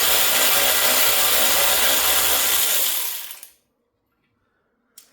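Cordless power tool running steadily as it spins out the 10 mm bolt holding the coolant overflow tank, then winding down and stopping about three and a half seconds in. A few faint clicks come near the end.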